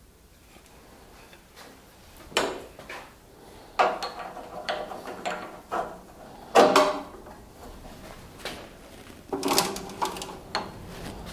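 A handful of sharp knocks and clatters, each with a short ringing tail, as a wooden board is handled against a combination jointer/thickness planer that is not running.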